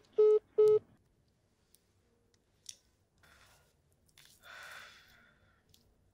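Mobile phone call-ended tone: three short, identical beeps in quick succession as the call is hung up. A faint soft rustle follows about four and a half seconds in.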